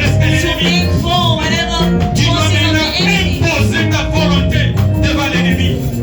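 Church worship music: voices singing over a band with a bass line that steps from note to note.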